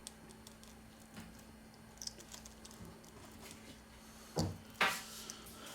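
Faint ticks and small taps of a repair tool handling a tablet's parts, with two louder clicks about four and a half seconds in, over a faint steady hum.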